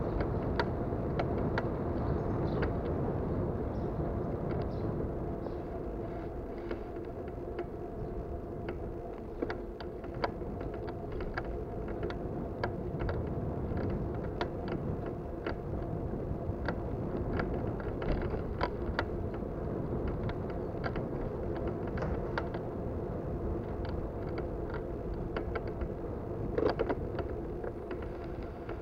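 Bicycle being ridden with a worn-out bottom bracket and a worn rear sprocket and chain, rattling and clicking like a bucket of bolts: irregular sharp knocks over a steady road rumble and hum, with one louder knock near the end.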